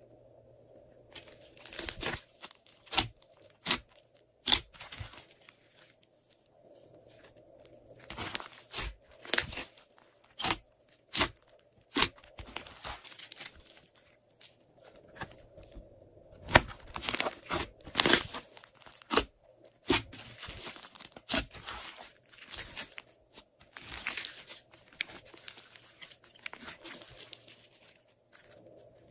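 Glossy slime being squeezed and stretched by hand, giving off sharp wet crackling pops in three long bursts with short pauses between.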